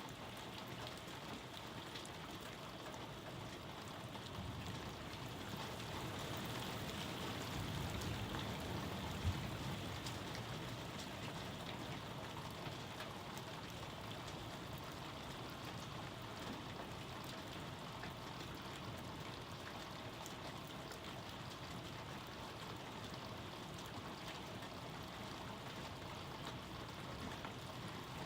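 Steady rain falling in a thunderstorm, a continuous even hiss of drops. It swells a little around eight seconds in, with one sharp tap about nine seconds in.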